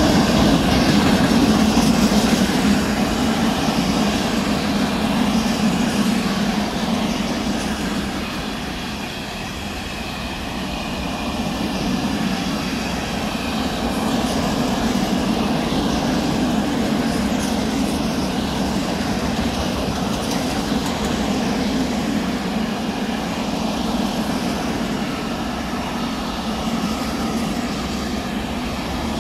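Freight train of open-top gondola wagons rolling past: a steady rumble of wheels on rails, easing slightly about eight to ten seconds in before building again.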